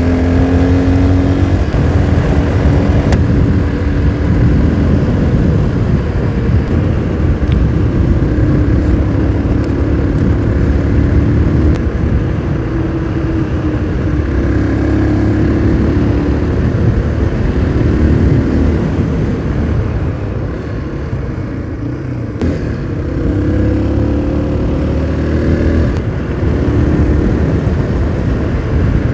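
Motorcycle engine running while riding, its pitch climbing as it accelerates near the start and again about three-quarters of the way through, holding steadier between, over a low rumble.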